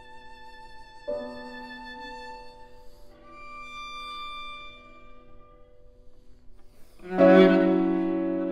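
Viola playing soft, long held notes with vibrato, moving to a high quiet note, then a sudden loud low bowed note entering about seven seconds in.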